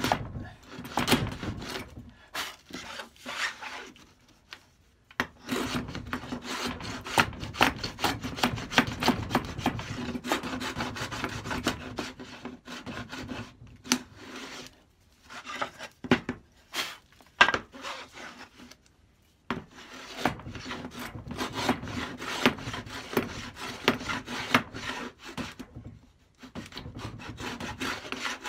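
Stanley No. 71 router plane cutting a flat-bottomed channel in a wooden board: the blade scrapes through the wood in runs of short back-and-forth strokes, with brief pauses between runs.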